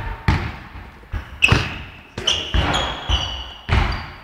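A basketball being dribbled on an indoor court, about seven bounces, each echoing in the hall, with short high squeaks of sneakers on the floor between them.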